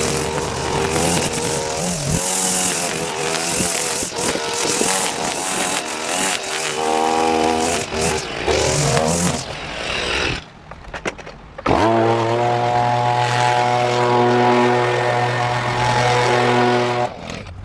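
Petrol string trimmer running while cutting grass, its engine pitch rising and falling with the throttle. After a brief quieter gap about ten seconds in, a petrol leaf blower runs at a steady, even pitch.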